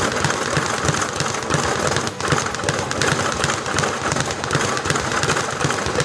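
Speed bag being punched in a fast, continuous rattle of rapid hits, the bag slapping against its rebound board.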